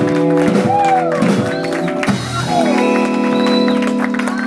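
Live blues band playing: held chords with bending lead notes sliding up and down over them.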